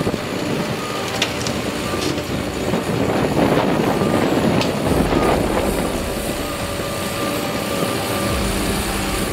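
Bucket-wheel excavator working: a steady mechanical rumble that swells louder for a couple of seconds midway, with a few sharp clicks in the first few seconds.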